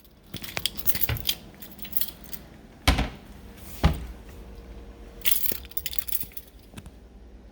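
Metal pots and pans clinking and rattling as they are handled in a kitchen cabinet, with two heavier knocks about three and four seconds in.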